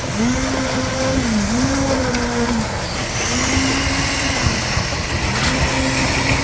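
A small engine on a concrete-working machine runs steadily, its pitch sagging and recovering several times as it takes load. A hiss joins about halfway through.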